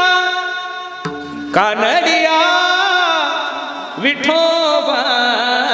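A male kirtankar singing a Marathi devotional verse (abhang) in long held, ornamented phrases over steady instrumental accompaniment, with new sung phrases starting about a second and a half in and again about four seconds in.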